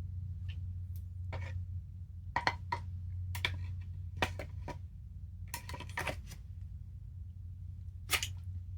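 Scattered clicks and light knocks of airsoft rifle parts being handled and fitted, some in quick pairs, over a steady low hum.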